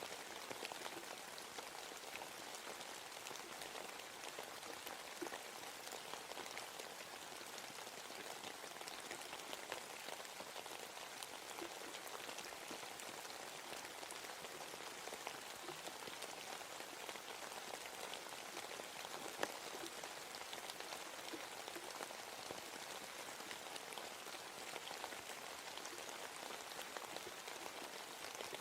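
Steady rain falling in a forest, a dense patter of drops on leaves and ground, with one sharper drop standing out about two-thirds of the way through.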